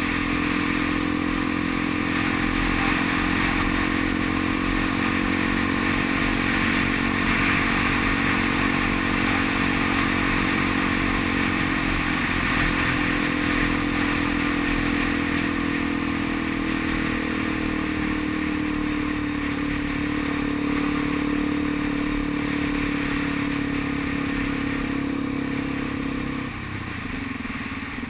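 Motorcycle engine running at a steady cruise, heard from the rider's seat. The engine note dips briefly about halfway through and falls away near the end.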